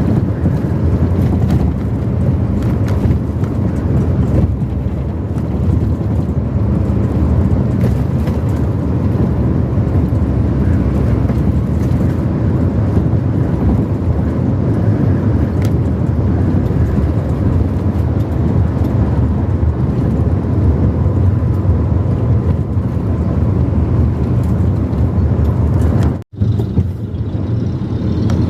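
Car driving along a highway: steady road and engine noise, a low rumble that briefly cuts out near the end.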